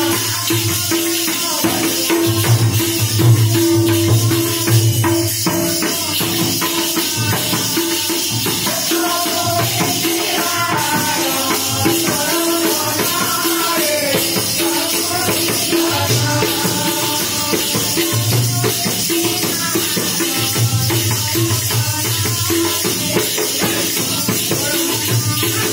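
Live Odia devotional bhajan: a two-headed barrel drum beating a steady rhythm under many hand-held clappers rattling in time, with group singing over them.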